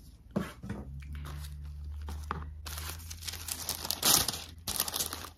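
Crisp tissue paper rustling and crinkling as it is unfolded inside a gift box, loudest in the second half, over a steady low hum.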